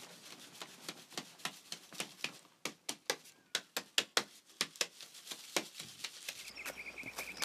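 A run of sharp taps at uneven spacing, about two or three a second. About six seconds in, a faint low hum and a faint high steady tone come in beneath them.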